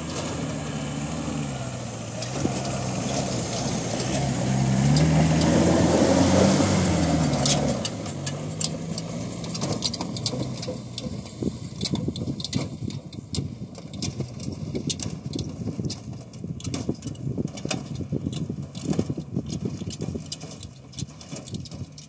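Pickup truck engine revving up and down under load as it climbs a steep dirt slope, loudest about six seconds in, then fading as the truck pulls away. Through the second half, many quick dry crackles.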